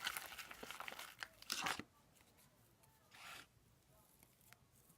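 Sticky homemade slime being stirred in a bowl: quick crackling, tearing sounds for about two seconds, then mostly quiet with one short soft rustle about three seconds in.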